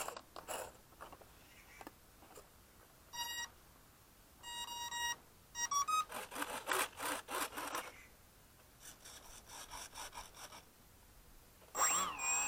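Small electric RC plane's speed controller beeping after the battery is plugged in: a short beep, a longer beep, then a quick rising pair of tones that signal it is armed. Between and after the beeps come stretches of rubbing, scraping noise, and near the end the propeller motor spins up with a sharply rising whine.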